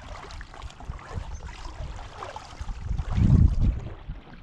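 Wind buffeting the microphone, an irregular low rumble that swells into a stronger gust about three seconds in.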